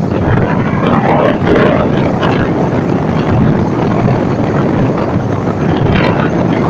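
Strong wind blowing on the microphone over the steady noise of a stormy sea's breaking surf, with a louder rush about a second in.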